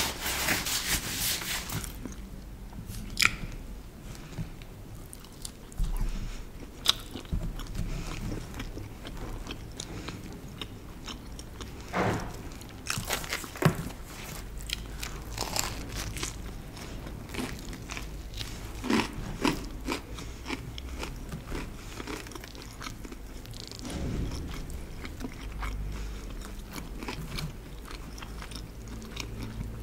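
Close-miked eating: chewing and biting of cheese-stuffed bread, with a crunchy stretch in the first couple of seconds and scattered sharp mouth clicks throughout.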